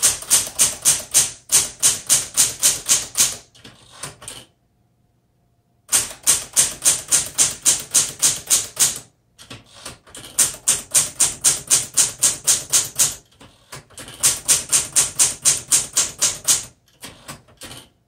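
Manual typewriter (1968 Smith Corona Super Sterling) being typed on: typebars clacking against the platen at about five strokes a second, in several runs broken by short pauses.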